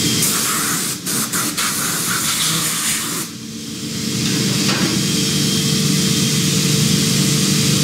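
Compressed-air blow gun hissing as it blasts steel chips out of a freshly rough-milled pocket. The blast breaks off briefly a few times about a second in, eases for over a second around the middle, then runs steadily, over a steady low hum from the machining centre.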